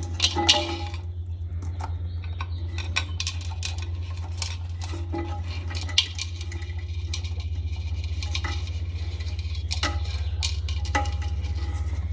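Scattered light clicks and clinks of a toilet flapper's metal chain and fittings being handled and adjusted inside the tank, over a steady low hum.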